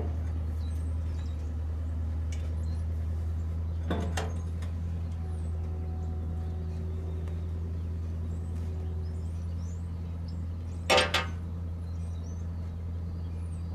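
Steady low hum of an idling engine, with a metal clink about four seconds in and a sharp double metal clank near the end as parts on the truck are handled.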